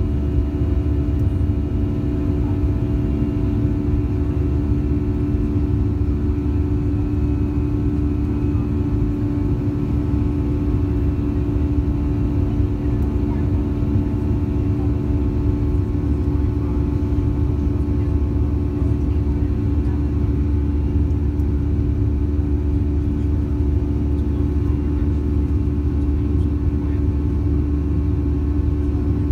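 Cabin noise of a Boeing 737-700 climbing after takeoff, heard from a seat over the wing: the CFM56 jet engines' steady drone, a low rumble with a held hum above it.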